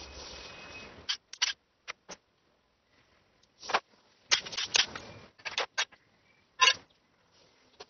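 Hand tools and metal engine parts clicking and clinking as they are handled, in short scattered clusters with near silence between them.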